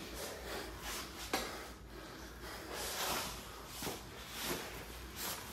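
Two people grappling on rubber floor mats: breathing and the rustle and scuff of bodies and clothing against the mats, with a few soft knocks.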